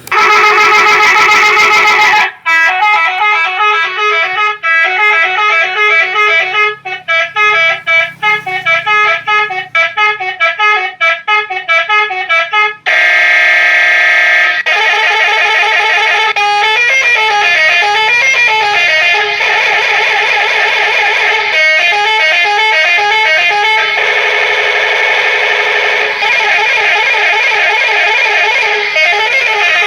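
Telolet horn playing multi-note tunes: a held chord, then a fast run of stepped notes, then a short held chord about 13 seconds in and a second looping tune whose notes step up and down.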